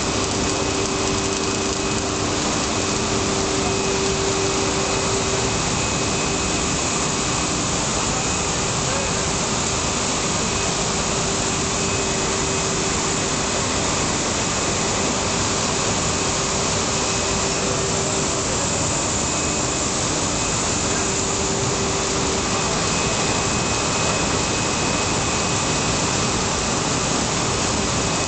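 Colines 200 bubble film extrusion line running: a loud, steady machine noise with two faint steady tones, one mid-low hum and one high whine, while the film runs over the rollers onto the winder.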